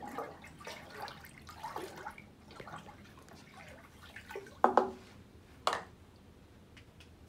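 Small trickles and drips of liquid as milk is poured from a small cup into a glass tank of water, followed by two sharp knocks about a second apart.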